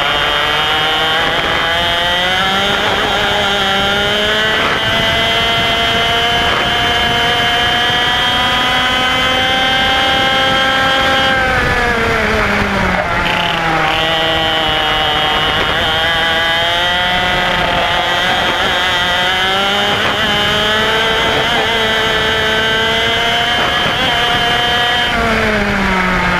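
IAME X30 125cc two-stroke kart engine, heard from on board at racing speed. Its note climbs steadily as the kart accelerates along a straight, falls sharply when the driver lifts off about eleven seconds in, climbs again for some twelve seconds, and falls once more near the end.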